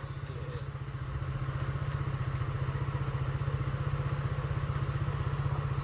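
An engine idling steadily, with a fast, even low pulse.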